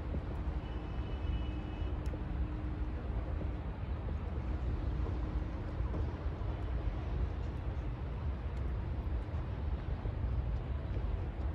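Steady low rumble of a vehicle in motion. A faint steady hum runs over it, drops out for a moment about four seconds in, and stops about seven seconds in.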